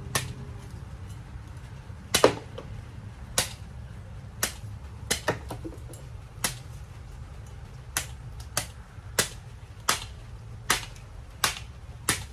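A machete chopping into the husk of a hand-held young coconut: a series of sharp chops, about one a second with some irregular gaps, well over a dozen strokes, the loudest about two seconds in.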